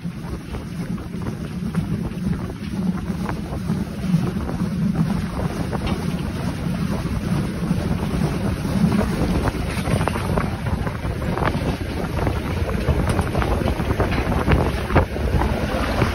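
DRG Class 52 'Kriegslok' steam locomotive pulling away: exhaust beats over a steady rumble, with steam hissing from the open cylinder drain cocks and wind buffeting the microphone.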